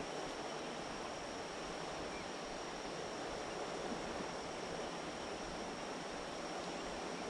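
Steady rush of high creek water flowing, with a faint steady high tone above it.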